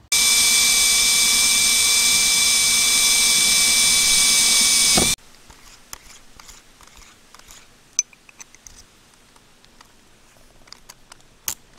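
Electric drill running at a steady speed for about five seconds and then stopping abruptly, drilling into the van's sheet-metal roof. Faint clicks follow, with two sharp taps, one about eight seconds in and one near the end.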